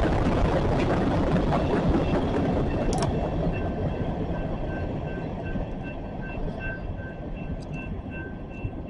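CSX freight train rolling past, a dense rumbling clatter of wheels on rail that slowly fades as the train moves away. A sharp click comes about three seconds in, and a faint, evenly repeated high ding sounds in the background from about two seconds on.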